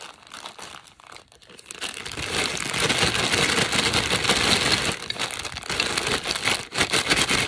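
Plastic candy bag crinkling as it is handled and worked open, getting louder and busier about two seconds in.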